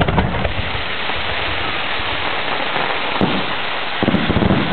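Fireworks crackling: a dense, steady crackle like rain from a burst of crackling stars, with sharper pops about three seconds in and a louder flurry near the end.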